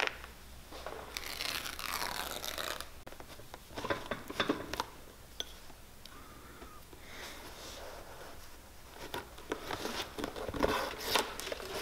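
Hand stitching through an old leather boot bottom: a stitching awl crunching through the leather and waxed thread rasping as it is drawn through the holes, in short irregular strokes with sharper clicks about four to five seconds in and a busier run near the end.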